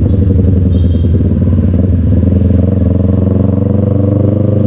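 Motorcycle engine running steadily as the bike rides along, heard from the rider's position.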